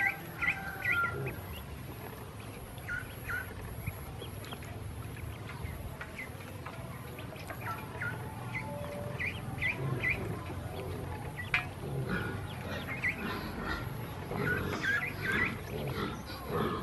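A group of ducklings peeping: short, high chirps coming in scattered clusters of several at a time.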